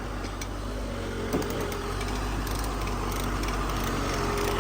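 Heavy engine running steadily under load, growing gradually louder, with a single knock about a second and a half in.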